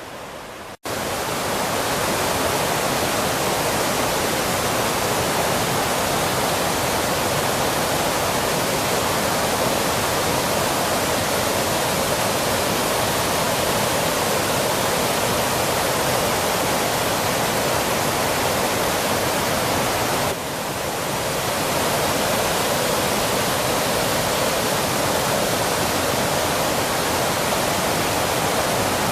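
Waterfall in heavy flow, swollen by recent heavy rain, giving a loud, steady rushing of water. It breaks off for an instant just under a second in.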